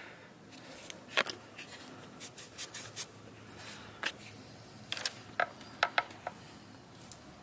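Handling noise: scattered light clicks, taps and rubbing as hands and a camera brush against an engine's hoses and wiring loom.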